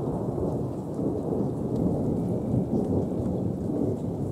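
Wind buffeting the microphone: a dense, steady low rumble with no higher sounds over it.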